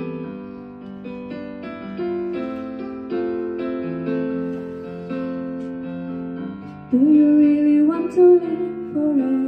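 Recorded keyboard accompaniment playing slow, sustained chords. About seven seconds in, a woman starts singing into a handheld microphone over it, and the sound gets noticeably louder.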